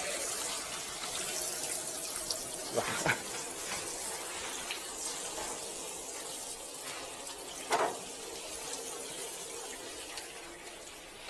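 Water running from the taps of a stainless-steel drinking-fountain trough and splashing onto the drain grates, a steady rush. Two short knocks come about three seconds in and another near eight seconds.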